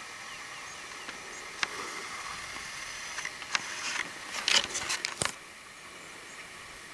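Steady outdoor hiss broken by a run of sharp clicks and knocks that gather in the middle and stop abruptly a little past five seconds in.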